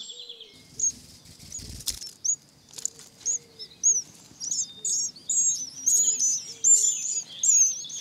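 House sparrows chirping: short high chirps, a few at first, then coming thick and overlapping from several birds from about halfway through. One soft knock about two seconds in.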